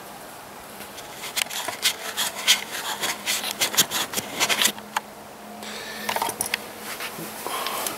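A tissue rubbing over an action camera's lens and housing right beside its microphone: scratchy rubs and clicks for a few seconds, a short pause, then more rubbing near the end.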